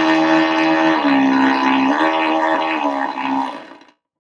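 Cordless drill running under load as it drives a screw through a wood panel: a steady motor whine whose pitch drops about a second in and then dips and recovers a few times as the screw bites. It dies away shortly before the end.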